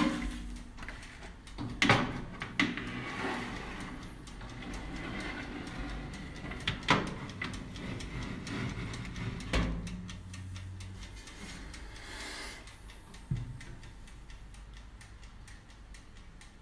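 Metal baking tray and wire rack scraping and clanking as they are loaded into a small electric countertop oven, with several sharp clanks, the loudest about two and seven seconds in, and the oven door being shut.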